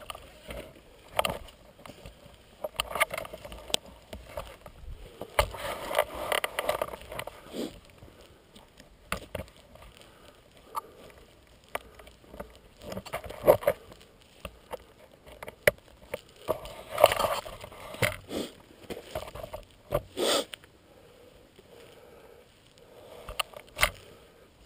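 Handling noise: irregular knocks, clicks and rustles of a camera mount and riding gear being handled up close, with no engine running.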